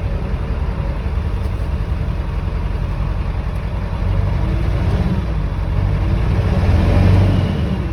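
7.3L Power Stroke V8 turbodiesel idling shortly after a cold start, its engine speed rising and falling twice, about four seconds in and again around seven seconds, the second rise louder.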